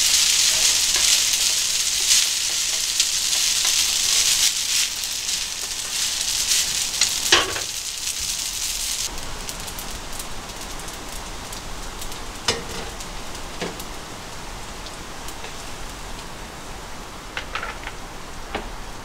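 Spaghetti sizzling in a hot frying pan as it is tossed and stirred with a wooden utensil, with a sharp clack of the utensil against the pan. The sizzling cuts off about halfway through, and a few light clicks and knocks follow as the pasta is served into bowls with chopsticks.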